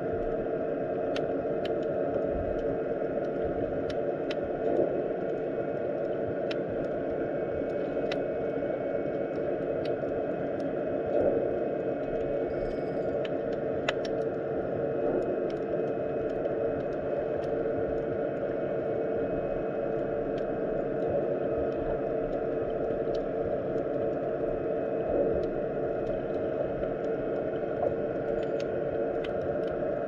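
Underwater ambience of the sea in the shallows: a steady low hum with scattered faint clicks and ticks.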